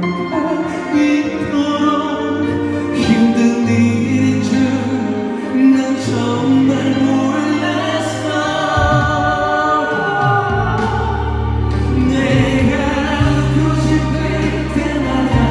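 Music with singing and choir-like voices over sustained chords; a deep bass comes in about ten seconds in.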